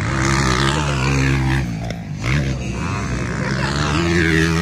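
Motocross dirt bike engine revving high. The pitch holds steady, drops about a second and a half in, blips up and down briefly just past the middle, and climbs again near the end.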